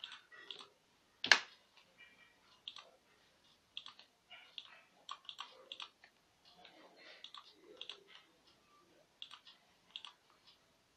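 Computer mouse clicking: many short, irregular clicks, with one much louder, sharp click about a second in.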